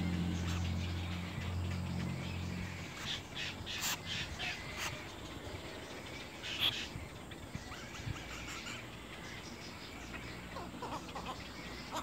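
Little egret chicks in the nest giving short, scratchy calls from about three seconds in, with a few brief higher chirps later. A low steady hum stops about three seconds in.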